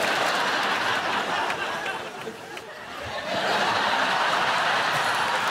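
Studio audience laughing. The laughter dies down about two seconds in, then swells up again a second later.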